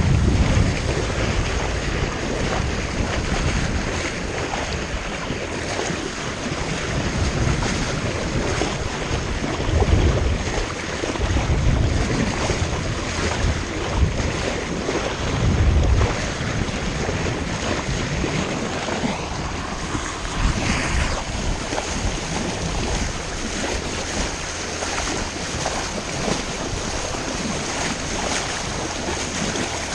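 Wind buffeting the microphone over the steady rush of water along a sailboat's hull as it moves through the sea, with several heavier gusts.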